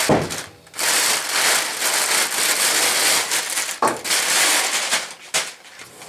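Thin plastic bag crinkling and rustling as it is pulled off and crumpled, with a short break about half a second in and a sharp knock near four seconds.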